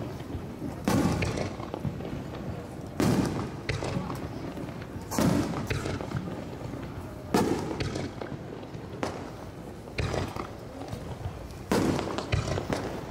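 Aerial fireworks shells bursting, about six loud bangs roughly two seconds apart, each trailing off in a short echo, with a few weaker pops between them.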